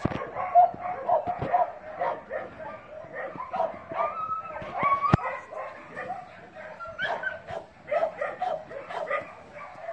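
Dogs yipping and whining, many short high calls overlapping one another, with a few rising whines about halfway through.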